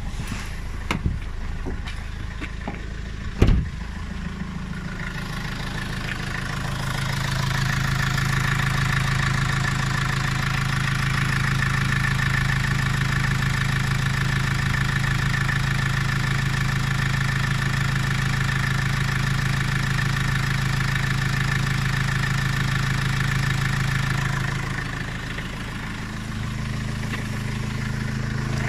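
Vivaro van's diesel engine running rough at idle, with a few sharp knocks in the first four seconds. The engine note grows louder about five seconds in, runs steadily, and drops back a little around twenty-five seconds in. The owner says it knocks at idle until warmed up and suspects an EGR fault or a vacuum leak.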